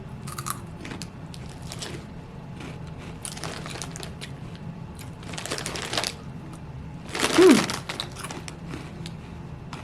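Crunchy Cheetos being bitten and chewed, with crinkling of the snack bag, in scattered crisp bursts. About seven and a half seconds in comes the loudest burst, with a short falling hummed 'mm'.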